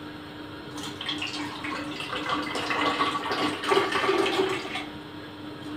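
Water poured from a stainless steel teapot into a plastic water bottle, filling it to rinse it out. The pour starts about a second in and trails off near the end.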